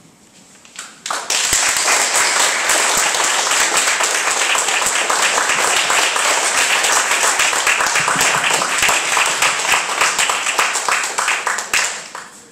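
Audience applauding: dense clapping starts about a second in, holds steady, and thins out near the end before cutting off suddenly.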